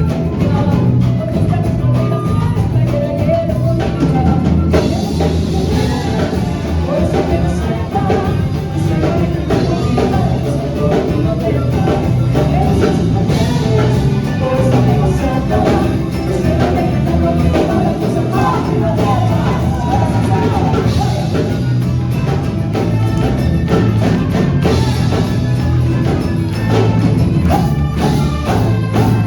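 Music playing continuously, with a wavering melody line over steady percussion.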